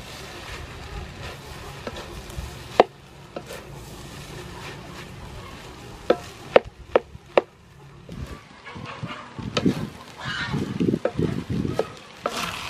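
A wooden spatula stirring and scraping fried rice around a large metal wok. Several sharp knocks of the spatula against the pan come around the middle, and a run of louder scraping and stirring comes near the end.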